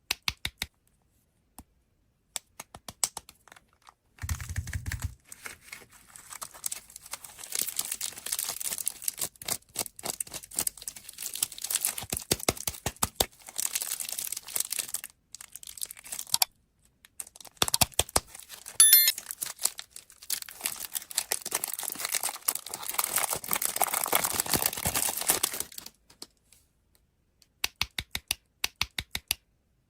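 Plastic candy wrappers being crinkled and torn open: two long spells of dense crackling, with sharp clicks and taps from the packaging before, between and after them.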